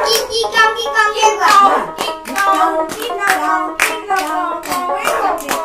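Bihu song: singing over a quick, steady beat of sharp claps, about three a second.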